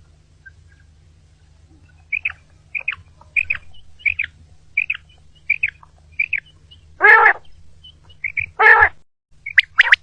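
Common quail calling: a run of short, evenly spaced double-note calls about one and a half a second, then two louder, harsher calls and a few quick sharp notes near the end.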